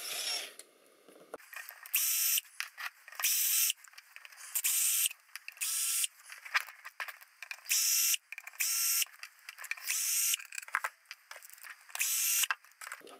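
Cordless power screwdriver running in about a dozen short runs, each about half a second, as it backs out the screws of a metal cover. Light clicks and rattles come between the runs as the bit is set and the screws come loose.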